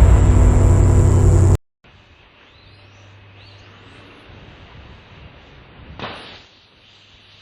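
Loud, crackling noise of a rocket launch, cut off abruptly about a second and a half in. Quiet outdoor ambience follows, with a few faint bird chirps and a brief rush of noise near six seconds.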